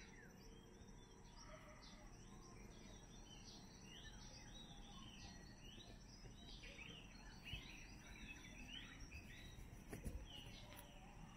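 Faint birdsong: many short chirps and twitters from several small birds, over a steady low background hiss.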